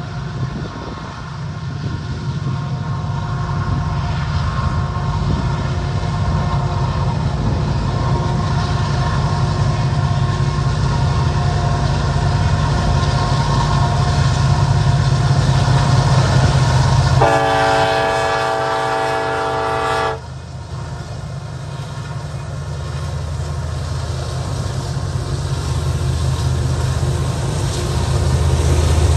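Union Pacific freight train's lead diesel locomotives approaching, their low engine rumble building steadily louder. A little past the middle comes one long horn blast of about three seconds that cuts off sharply.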